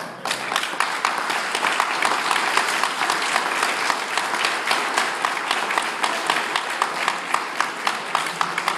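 Audience applauding: dense clapping from many people that breaks out at once, with single sharper claps standing out more toward the end.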